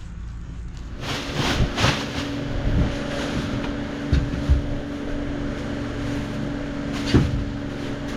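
A motor running with a steady hum, with several sharp knocks over it.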